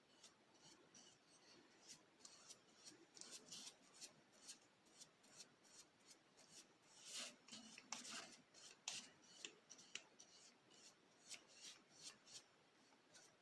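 Faint, irregular scratchy rubbing strokes of sanding sealer being applied to a turned wooden vase, a little louder in the middle.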